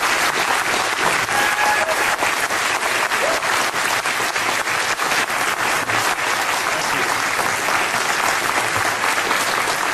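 Audience applauding steadily, many hands clapping at the end of a speech.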